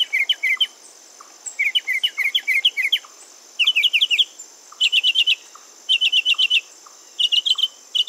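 Northern mockingbird singing: bursts of quick, high notes, each phrase repeated several times in a row before the bird switches to a new one. A steady high drone runs underneath.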